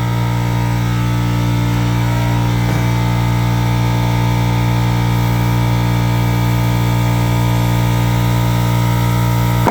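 Air compressor running with a steady, loud drone; the sound cuts off abruptly at the very end.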